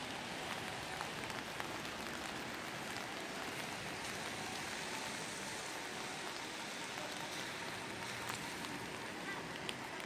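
Steady rain falling on wet pavement, with scattered close raindrops ticking.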